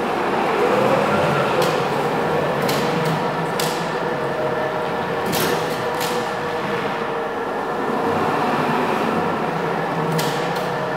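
48-volt BT CBE 2.0T three-wheel electric counterbalance forklift driving and turning: a steady electric drive-motor whine, rising briefly about a second in, with several sharp clicks.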